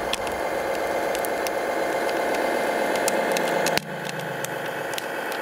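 A small motor hums steadily with scattered crackling clicks. About four seconds in, the sound drops suddenly and a lower hum slides down in pitch, as a motor does when it winds down.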